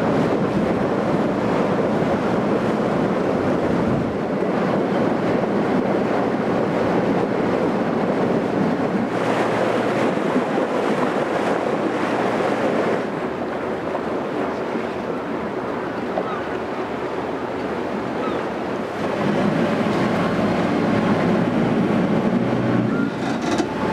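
Passenger ferry under way: a steady rush of wind and water along the hull, with the boat's engine running low underneath. The level shifts abruptly a few times.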